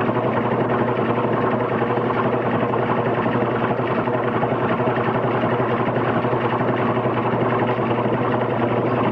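Steady mechanical whirring with a fast, even clatter over a low hum, unchanging throughout.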